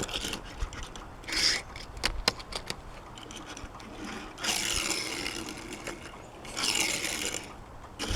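Die-cast Hot Wheels toy cars being handled and run on a plastic toy track: a few sharp clicks, then two rushing runs of about a second each.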